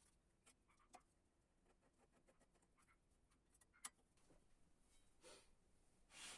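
Near silence: faint room tone with a couple of small clicks and two soft rustles near the end.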